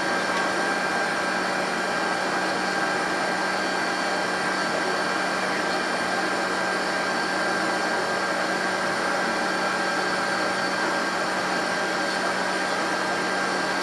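Steady whirring hum of aircraft machinery inside a Handley Page Victor's cockpit, with a constant high whine over it and no change in pitch or level.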